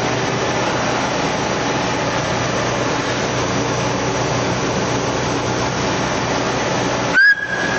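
Kraft paper making machine running: a steady mechanical noise with a low hum. About seven seconds in, a sudden louder sound with a short high steady tone.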